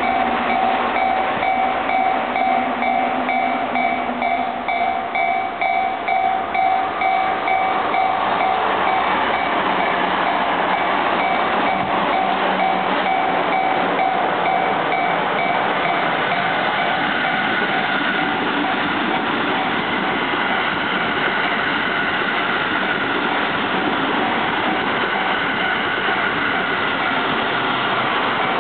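Japanese railway level-crossing warning bell ringing in rapid repeated clangs while trains pass over the crossing. The bell is clearest in the first few seconds and again near the end. In between, the rushing noise and rhythmic wheel clatter of passing trains largely cover it.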